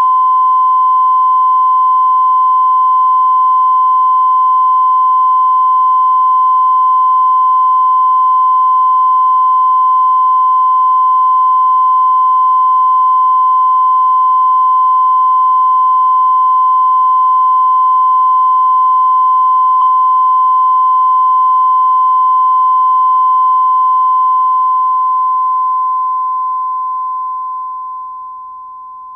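Steady 1 kHz line-up test tone of the kind played with broadcast colour bars, one unbroken pure beep. A faint click about twenty seconds in, and the tone drops sharply in level over the last few seconds without stopping.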